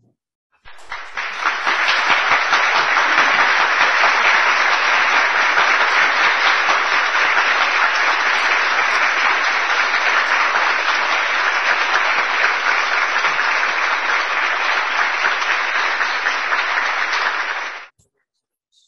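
Audience applauding, a dense steady clapping that starts about a second in and cuts off abruptly shortly before the end.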